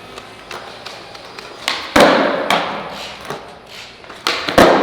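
Skateboard hitting pavement during a trick attempt: two loud, sharp clacks with a short ringing decay, about two seconds in and near the end, and a few light taps in between.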